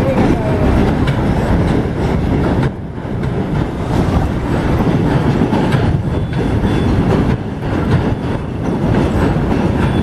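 Passenger train rolling across the Pamban rail bridge, its wheels clattering steadily over the track, with a short dip in level about three seconds in.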